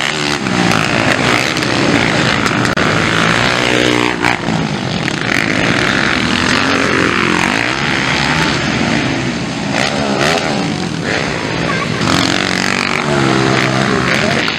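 Motocross dirt bikes racing on a dirt track, engines revving up and down as riders accelerate and shift, with several sharp climbs in pitch as bikes pull hard past.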